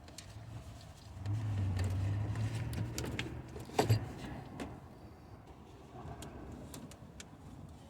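Small metallic clicks and knocks of hands and tools working on battery cables and a bracket, with a steady low hum for about three seconds and a sharper knock near the middle.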